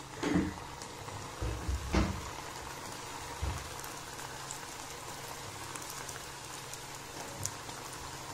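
Gulab jamun dough balls deep-frying in hot oil in a steel kadai: a steady sizzle of fine bubbling. Two soft bumps stand out, one near the start and one about two seconds in.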